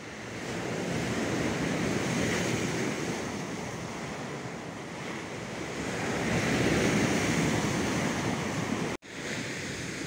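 Black Sea surf breaking on a sandy, rocky shore: a steady wash of waves that swells twice and cuts out for an instant near the end.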